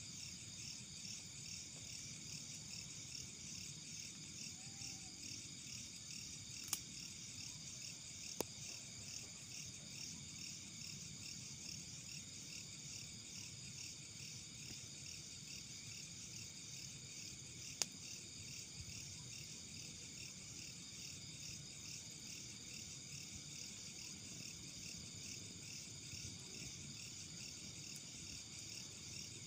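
Night chorus of crickets and other insects: a steady, shrill, rapidly pulsing trill in several overlapping voices. Three sharp cracks stand out, twice close together early on and once about two-thirds of the way through.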